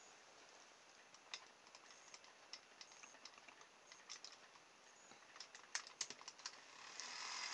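Faint scattered clicks and taps of hands fitting a small homemade propeller blade onto the shaft of a nasal hair trimmer's small electric motor. Near the end the motor starts and runs steadily, spinning the propeller.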